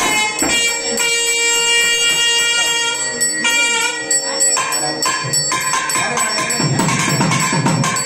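Music played in a temple hall, with a bell ringing over it from about one to three seconds in.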